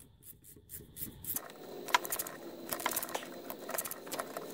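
Ratcheting spanner clicking as it turns the alternator's 14 mm mounting bolt: a string of irregular light clicks starting about a second and a half in.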